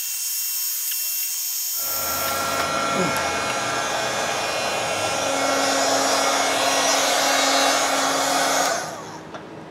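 Small handheld heat gun blowing hot air, a steady fan-and-air rush that gets louder and fuller about two seconds in. It cuts off suddenly near the end as the gun is switched off.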